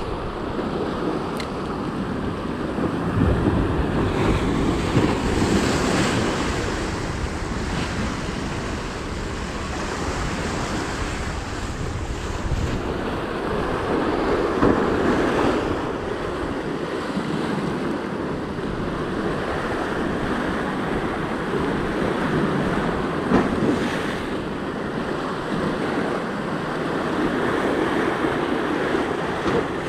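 Sea waves surging and breaking against shore rocks, the noise swelling and ebbing every few seconds, with wind buffeting the microphone.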